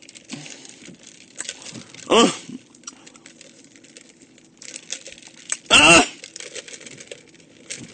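A man's brief wordless vocal sounds: a short falling one about two seconds in, and a louder, longer one near six seconds. Between them come soft clicking and rustling handling noises over a faint steady hum inside a car.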